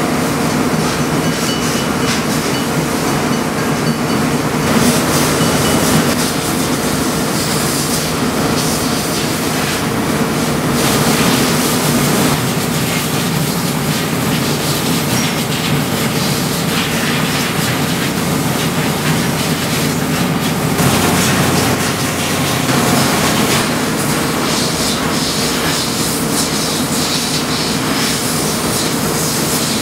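Stationary rail grinding car's engines and equipment running with a steady mechanical hum, with louder surges of rushing noise about 5, 11 and 21 seconds in.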